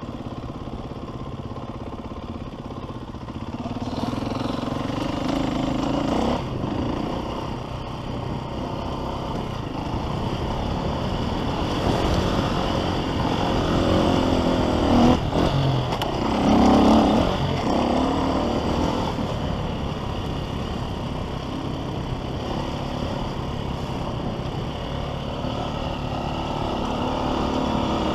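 Motocross bike engine revving up and dropping back again and again as it rides a dirt track, heard from a camera on the bike, loudest about halfway through.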